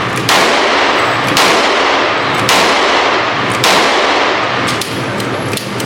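Four loud gunshots about a second apart, each ringing on with a long echo as in an indoor range; a few fainter, sharper shots follow near the end.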